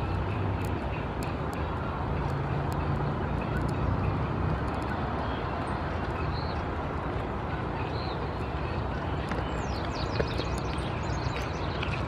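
Steady outdoor background noise with a low rumble of distant traffic. Two faint bird chirps come in the middle, and a quick run of high, falling bird notes comes near the end.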